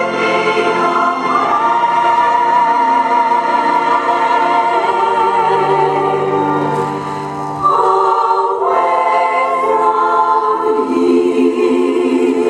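Several voices singing together in harmony, choir-style, holding long notes with vibrato and moving to new chords twice.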